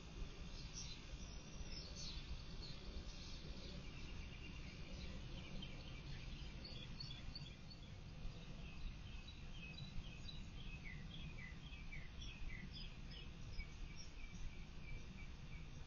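Faint outdoor ambience: birds chirping over a steady low rumble, with quick runs of short, downward-sliding chirps through the middle and latter part.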